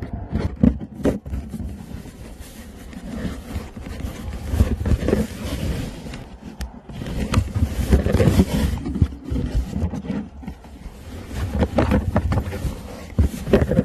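Close-up scraping and rubbing on cardboard as a beagle noses and pushes against a phone recording inside a cardboard box, with irregular knocks and a low rumble of handling noise on the microphone.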